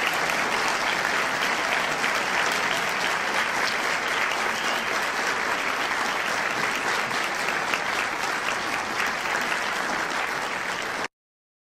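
Audience applauding: many hands clapping in a dense, steady patter that cuts off abruptly near the end.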